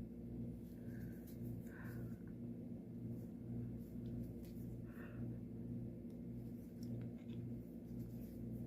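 Faint rustles and light ticks of hand cross-stitching, needle and floss drawn through the cloth, over a low hum that swells and fades at an even rate throughout.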